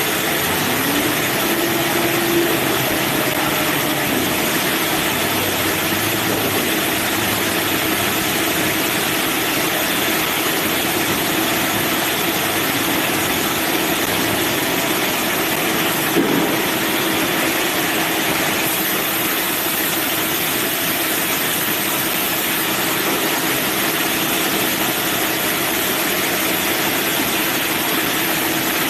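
Manual bandsaw mill running steadily, a constant hum over a loud hiss, with a single sharp knock about halfway through.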